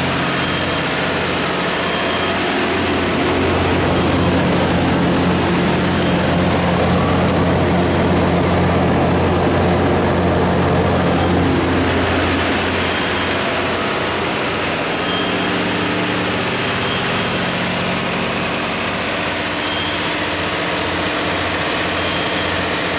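Cummins KTA19-G2 turbocharged inline-six diesel engine of a 400 kW generator set running steadily, a loud low drone with the rush of cooling-fan air. The high hiss drops away for several seconds in the middle, then comes back.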